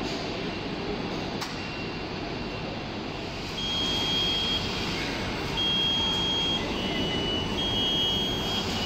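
Steady mechanical noise of warehouse machinery, with an autonomous mobile robot's warning beeper joining about a third of the way in: repeated high steady tones, each about a second long, as the robot drives in under the pallet station.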